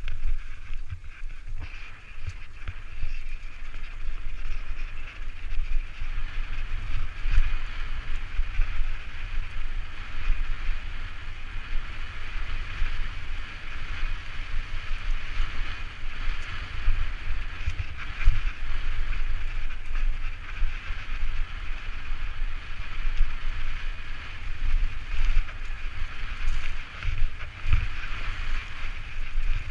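Mountain bike descending a dirt forest trail, heard through a helmet-mounted camera: wind rumble on the microphone with tyre roll and rattles from the bike, rising and falling unevenly with the ride.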